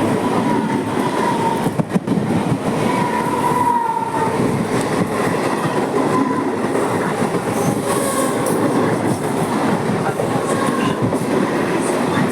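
Mumbai suburban local train running along the track: a steady, loud rumble and rattle of the carriages, with a faint wavering whine that comes and goes several times.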